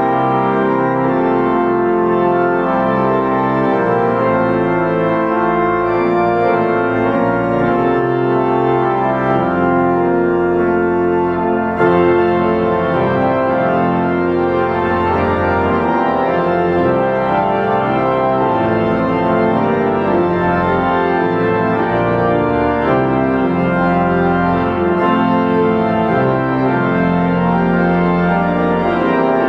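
Five-manual pipe organ playing sustained full chords that change every second or two over low pedal bass notes, with one short click about twelve seconds in.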